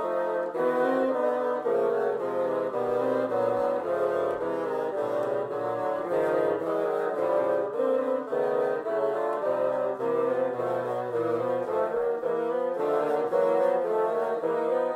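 Concert band backing track: wind instruments, among them multi-tracked woodwinds such as bassoon, play sustained chords and moving lines without a break.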